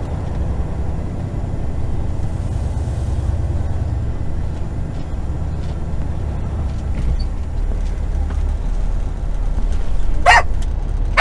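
Semi truck's diesel engine running at low speed, heard from inside the cab as a steady low rumble while the truck creeps across a parking lot. Near the end a dog in the cab barks sharply, once and then again.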